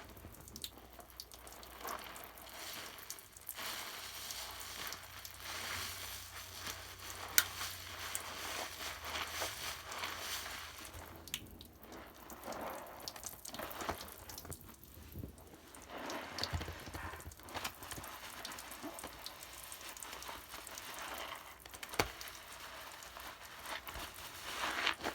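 Bath foam crackling and fizzing as its bubbles pop, with a few sharper clicks; the loudest click comes about seven seconds in.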